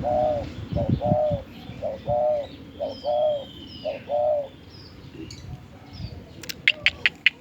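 A dove cooing in a steady repeated series, about one coo a second with short notes between, for the first four or five seconds. Near the end comes a quick run of short high chirps, about four or five a second.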